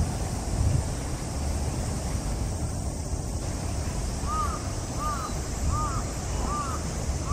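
Wind buffeting the microphone, a steady low noise. About halfway through, a bird starts calling: five short arched calls, roughly one every 0.7 seconds.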